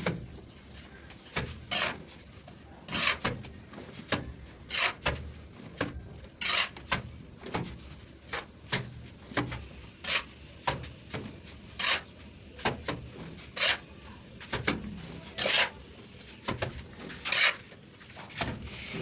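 A plastering trowel or float scraping over wet cement-sand plaster on a brick wall, in short rasping strokes roughly once a second at an uneven pace.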